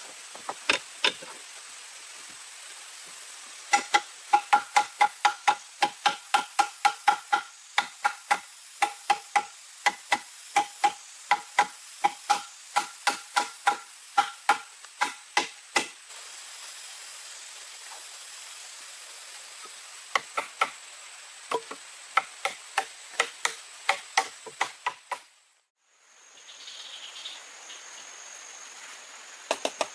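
Rapid, sharp strikes of a tool on wood or bamboo, about three a second, with a ringing note through the first long run. A second, sparser run of strikes follows, and a faint steady high tone runs underneath.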